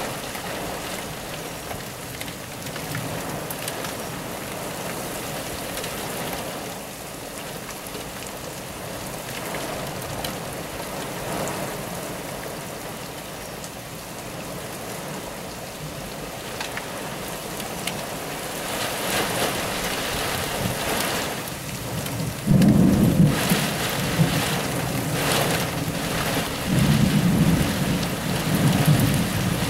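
Heavy thunderstorm rain beating steadily on window glass. A loud, low thunder rumble starts about three-quarters of the way through and comes again near the end.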